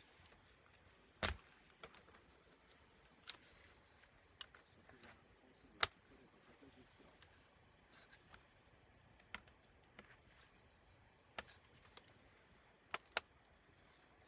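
Scattered sharp clicks and taps from small tools and laptop parts being handled while the laptop is taken apart, about a dozen at uneven spacing. The loudest come about a second in and near the middle.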